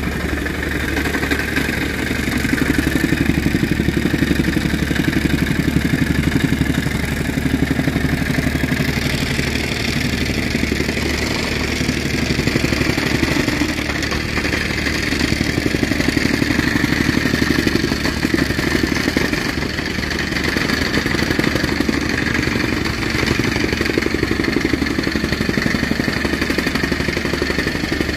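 Engine-driven soil compactor running steadily, its small engine and rapid pounding clatter going on without a break, rising and falling slightly every few seconds.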